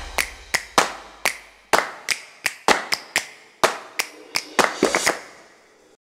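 Sharp percussion strikes in a quick, uneven rhythm, about twenty in all, each with a short ringing tail. They bunch closer together near the end, then die away.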